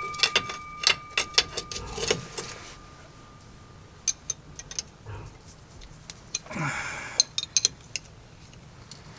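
Light metallic clinks and rattles: a quick run of them in the first two seconds, then scattered ones, with a short scraping rustle about two-thirds of the way through.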